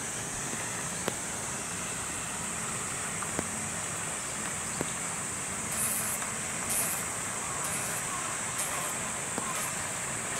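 Steady hiss of rain with scattered drips ticking, under a steady high-pitched drone; from about halfway a high chirp repeats roughly once a second.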